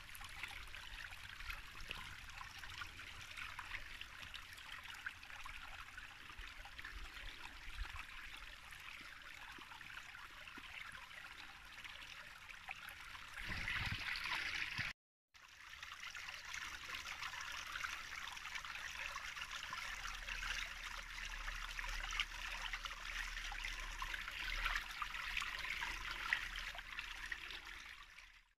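Water running steadily, like a small stream or brook, with a short break about halfway through where the sound cuts out completely.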